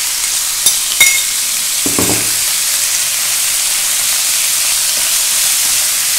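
Pieces of marinated pork sizzling in hot oil with fried shallots in a frying pan as they are tipped in and stir-fried with chopsticks, a steady loud sizzle. Two sharp clicks about a second in and a soft thud about two seconds in.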